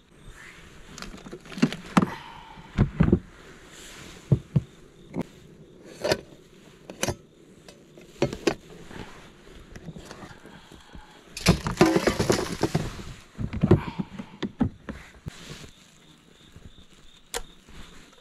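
Hands handling camping gear: a string of sharp clicks and knocks, with a longer scraping rustle about twelve seconds in.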